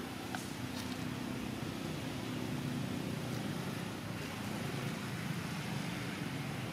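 Steady low rumble of outdoor background noise, with a faint steady hum through the first three seconds.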